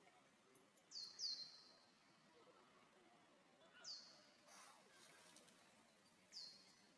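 A bird chirping with short, high calls over a quiet outdoor background. Each call sweeps quickly down and settles into a brief held note. Two come close together about a second in, one about four seconds in, and one near the end.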